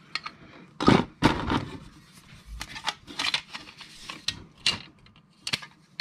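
Handling noise from an unboxing: scattered clicks and knocks as packaging and small parts are moved, with two louder knocks about a second in and short bursts of rustling.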